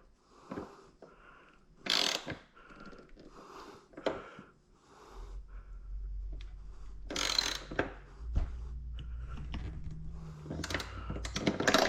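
Ratchet wrench clicking in short runs as the exhaust clamp bolts are tightened. A low steady hum comes in about five seconds in.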